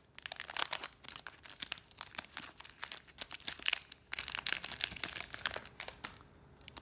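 Foil trading-card pack crinkling as it is torn open by hand: a dense run of crackles that dies away about six seconds in.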